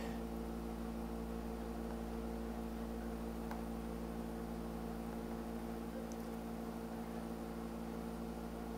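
Steady low hum with a hiss of background noise: room tone picked up by the microphone during a pause in speech, with a faint click about three and a half seconds in.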